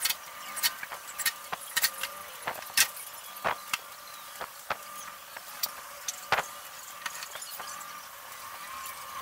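Scattered sharp clicks and knocks of plywood pieces being handled and set down on a plywood workbench top, at irregular intervals over a faint steady high tone.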